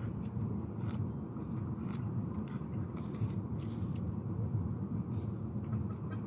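Steady low outdoor rumble, with scattered light clicks and taps of spoons against bowls and soft eating sounds as two people eat.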